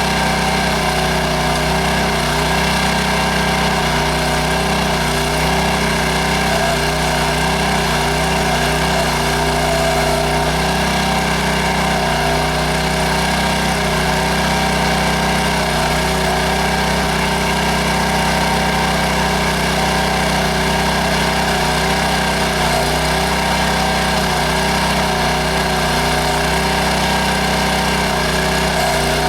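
Small gasoline engine of a towable backhoe running at a steady speed as it powers the hydraulics for digging.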